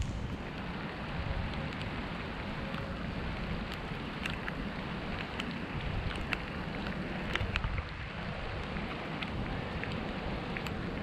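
Wind blowing on the microphone with a steady low noise, and scattered raindrops ticking on the camera at irregular moments.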